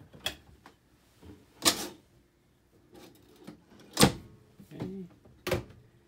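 Wooden cabinet doors under a kitchen sink being opened and shut, giving about four sharp knocks and clicks. The loudest comes about four seconds in.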